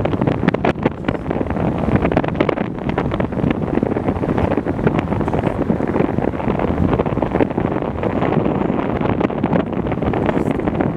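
Wind buffeting the microphone: loud, gusty rumbling and crackling that runs without a break.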